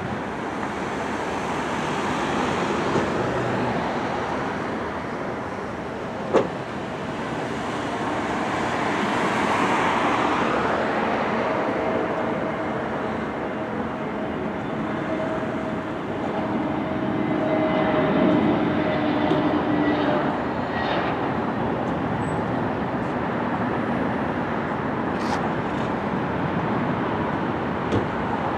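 Airbus A320neo jet airliner landing: a steady engine rush that swells as the aircraft comes in low, and swells again just after touchdown, with a faint steady whine mixed in. A single sharp click about six seconds in.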